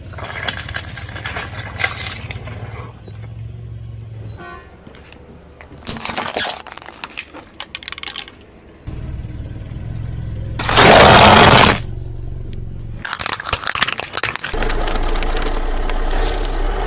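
A car's engine running low as its tyres roll over and crush assorted objects: crunching, cracking and scraping, with one very loud burst lasting about a second, a little after halfway.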